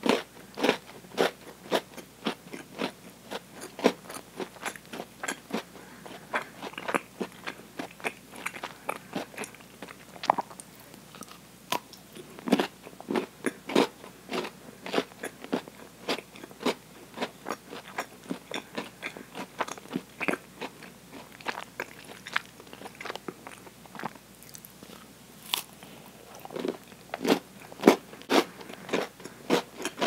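Close-up biting and chewing of a thick Oreo milk chocolate bar: a steady run of quick crunches and crackles as the chocolate and the cookie pieces in it break between the teeth. The crunching is densest near the start and again near the end.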